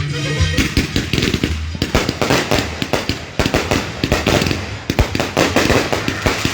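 Consumer fireworks going off in quick, irregular succession: a dense string of sharp bangs and pops, several a second.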